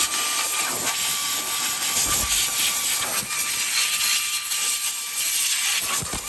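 Compressed-air blow gun with a long wand blasting a continuous loud hiss, blowing dust and pine needles out of a truck's engine bay, with a faint steady whistle under the hiss.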